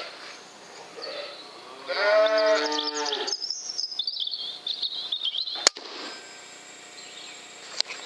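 Pigs squealing: a lower pitched call, then a long high squeal that slowly falls in pitch. A single sharp click comes near the end of the squeal.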